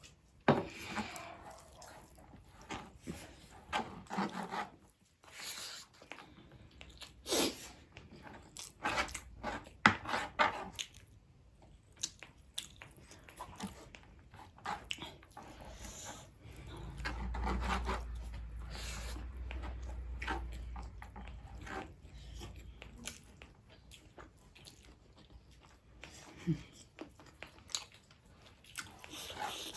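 Close-up chewing and biting of a meal of pork meat and rice, with irregular wet mouth clicks and smacks. A low rumble runs for a few seconds in the middle.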